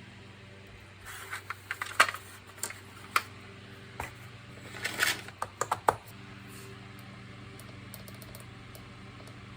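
A quick, uneven run of light clicks and taps of hard plastic parts being handled, between about one and six seconds in, over a steady low hum.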